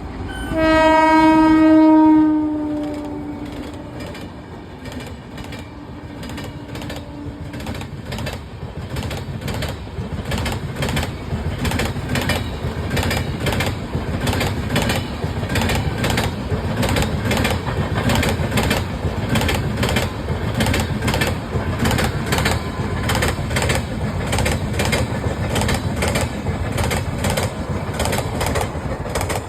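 WAP-7 electric locomotive sounding one horn blast that falls slightly in pitch as it passes. It is followed by the steady rumble and regular clatter of the coaches' wheels over rail joints, about two knocks a second.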